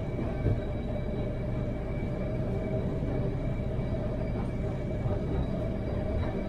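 Interior sound of the 1942 Trondheim Sporvei tram no. 6 running along the rails: a steady rumble from the wheels and running gear with a steady whine above it.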